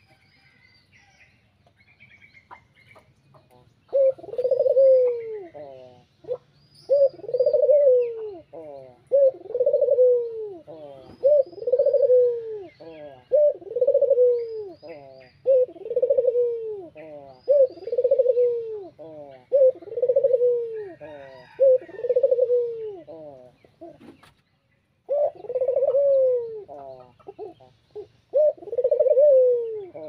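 Ringneck dove (burung puter) cooing over and over, starting about four seconds in: a rolling coo roughly every two seconds, each rising and then falling in pitch, with one short break near the end. Small birds chirp faintly in the background.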